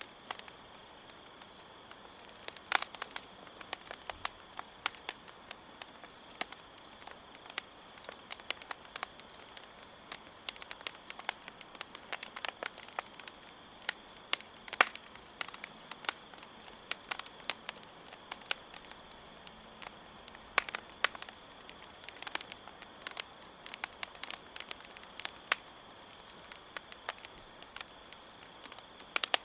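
Campfire burning with dense, irregular crackles and pops as the wood burns, over a steady high cricket chirring.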